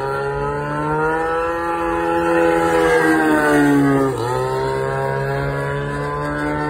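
Radio-controlled model airplane flying overhead: a steady motor whine whose pitch slowly rises and falls as it flies, dipping sharply and recovering about four seconds in.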